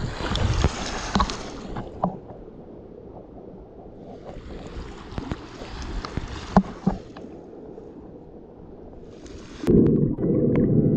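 Water sloshing and gurgling around the camera, with scattered clicks and knocks, coming in two surges. About ten seconds in, background music starts abruptly and loudly.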